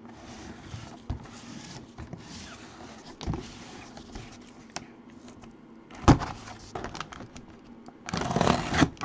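White cardboard mini helmet box being handled by gloved hands: soft sliding and rubbing of the cardboard, a sharp knock about six seconds in, and a loud scraping rustle near the end.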